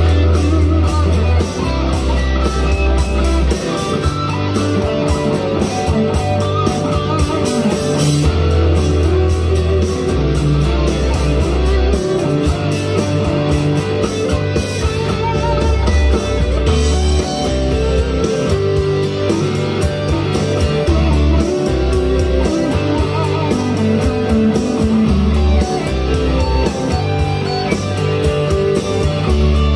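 Electric guitar, a Firefly FFLPS Les Paul copy, played through an amp over a rock backing track with a steady beat and a moving bass line.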